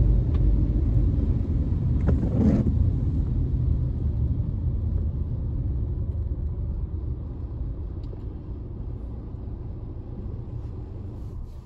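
Low, steady rumble of a car's engine and tyres on a wet road heard from inside the cabin, with a brief louder swell about two seconds in. The rumble dies away gradually as the car slows to a stop in traffic at a red light.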